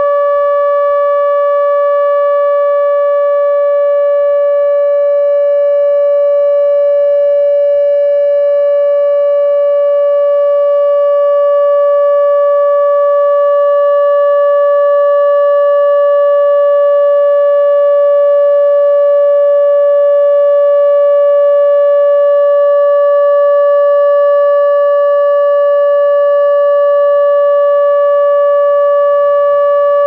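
ATI HPSS-32 electronic warning siren, its array of horn speakers sounding the loud steady Alert signal in a scheduled test: one unwavering pitch with overtones.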